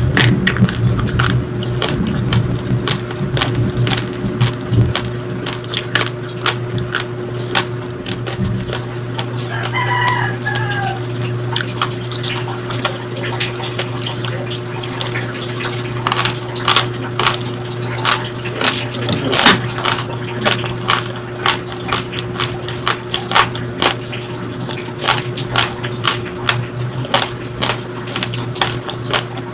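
Raw, uncooked white rice grains crunched between the teeth close to the microphone: many sharp crackles in quick succession, densest in the second half. A short pitched call sounds about ten seconds in, over a steady low hum.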